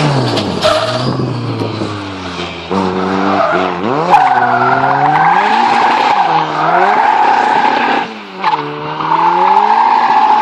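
Race car engine revving up and down at a hill climb, its pitch dipping and climbing again several times, with a steady high tyre squeal over much of it. Two sharp cracks come at the dips, about 4 and 8 seconds in.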